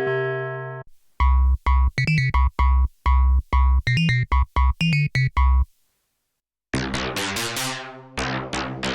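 Arturia MiniFreak synthesizer playing presets. A held chord fades out, then a run of short, punchy, bass-heavy staccato notes plays. After a pause of about a second, a different preset sounds bright plucked notes whose brightness drops quickly on each note.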